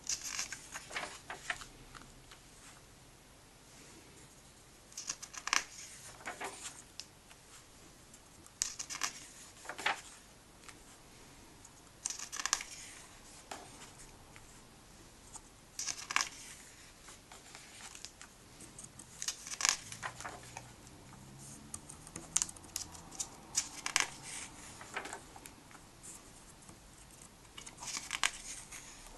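Pages of a printed comic book being turned one at a time. Each turn is a short, crisp rustle and crackle of paper, about every three to four seconds, some eight turns in all.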